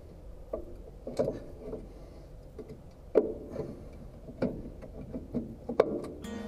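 Irregular metallic clicks and knocks of a hand tool and parts being worked at the right brake housing of a Case 580C loader backhoe, with a few sharper knocks standing out.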